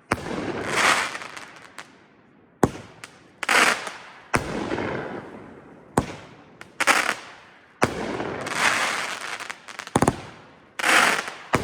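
A consumer fireworks cake firing shot after shot: a sharp bang every second or two, each followed by about a second of hissing, crackling break.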